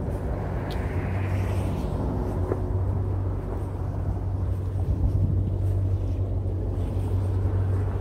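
A steady low engine rumble.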